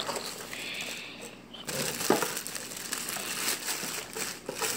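Clear plastic packaging bag crinkling and rustling as a wrapped aquarium wavemaker pump is pulled out of its cardboard box. The crinkling grows louder about two seconds in, with one sharp knock.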